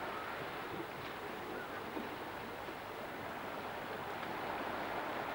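Steady outdoor noise of wind and sea waves washing on the shore, with no distinct events.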